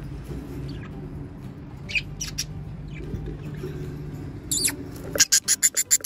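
Budgerigars in a nest box: a few short, high chirps, then from about five seconds in a fast, even run of high-pitched cheeps, about six a second, over a low steady hum.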